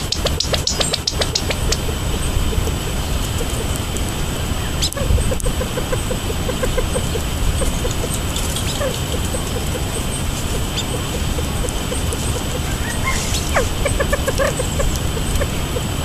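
Small birds chirping and calling: a quick run of high chirps at the start, a series of soft low notes in the middle, and a falling call with a few more notes near the end, over a steady low rumble.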